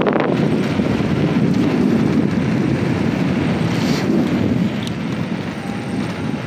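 Wind rushing over a camera microphone riding on a fast electric scooter: a steady, rumbling rush that eases a little about five seconds in.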